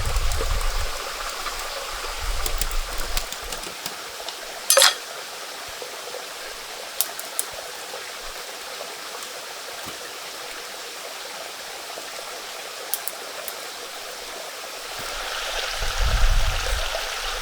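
Stream water running steadily, with a single sharp click about five seconds in and a low rumble near the start and again near the end.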